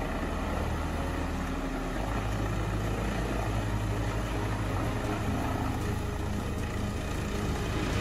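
Diesel-powered tracked wood shredder running under load, a steady low engine drone with the rough noise of scrap timber offcuts being shredded. The low hum shifts in pitch slightly about two seconds in and again about five seconds in.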